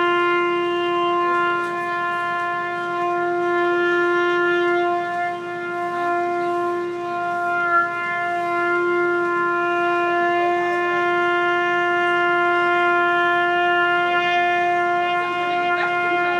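A trumpet holding one steady note without a break. It is sustained for as long as one breath allows.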